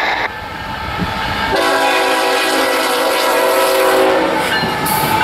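A CSX freight locomotive's multi-chime air horn sounding as the train approaches and passes. One blast cuts off just after the start, then a long blast begins about one and a half seconds in and holds for about three seconds. It gives way to the rumble of the passing locomotives and rail cars.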